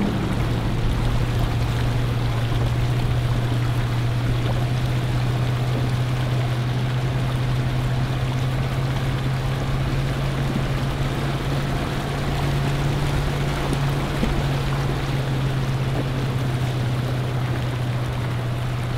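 V8 four-wheel drive wading slowly along a shallow rocky riverbed, its engine running with a steady low hum while water splashes and washes around the tyres.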